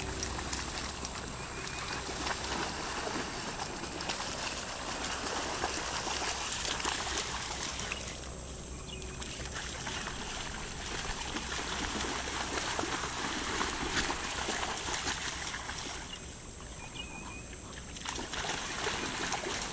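Dogs wading and running through shallow pond water, a continual splashing and sloshing with two short quieter lulls, one about halfway and one near the end.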